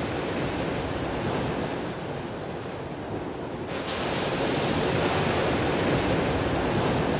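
Ocean surf breaking and washing over a rocky coral-reef shore, with some wind. The surf grows louder and brighter about four seconds in.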